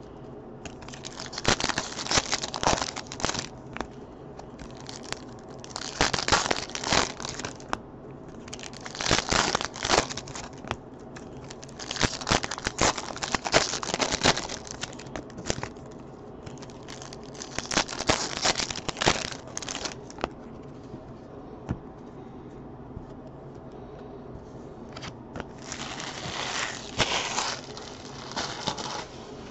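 Foil trading-card pack wrappers being crinkled and torn open by hand, in a series of bursts a few seconds apart with a quieter gap before the last one.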